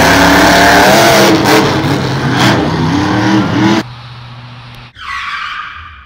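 Loud car engine sound effects revving, with pitch rising and falling, that cut off sharply about four seconds in. A lower steady hum follows, then a sudden hit about five seconds in that rings and fades away.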